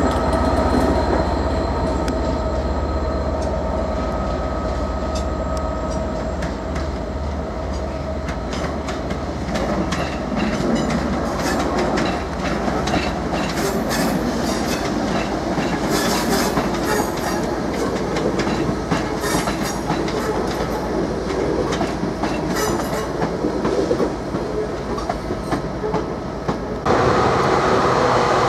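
Class 319 electric multiple unit running past, its wheels clicking over the rail joints above a steady rumble. Near the end it cuts suddenly to the louder, steady sound of a Class 66 diesel locomotive approaching with a freight train.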